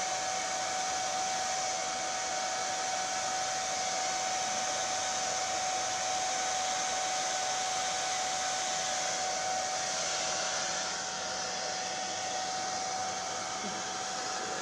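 Handheld hair dryer running steadily, a rush of air with a steady whine, blowing wet acrylic pour paint across a canvas; it gets a little quieter about eleven seconds in.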